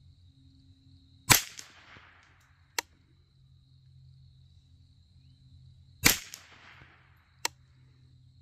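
Two shots from a Rock Island Armory / Derya TM22 .22 LR rifle firing CCI standard-velocity rounds, about five seconds apart, each with a short trailing echo. Each shot is followed about a second and a half later by a fainter sharp click.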